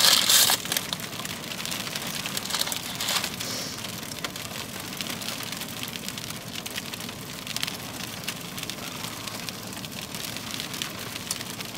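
A paper food bag rustling briefly at the start as a taquito is pulled out, then a steady faint crackle of fine scattered ticks.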